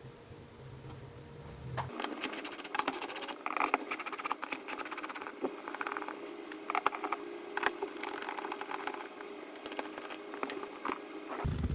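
Socket ratchet clicking in quick spurts, with metal rattling, as the nuts are turned off the shifter mounting studs.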